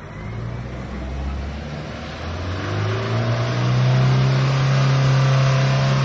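Off-road jeep's engine revving up under load as it pushes through deep mud, its pitch climbing over the first few seconds and then held steady at high revs.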